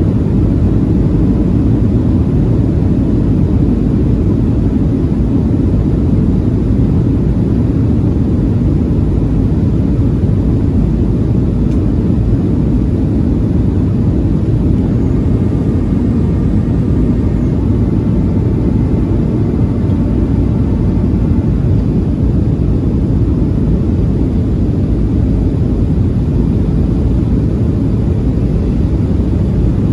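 Steady low cabin rumble of a Boeing 737-700 in flight: airflow and CFM56 engine noise heard from inside the cabin. A faint higher whine comes and goes in the middle.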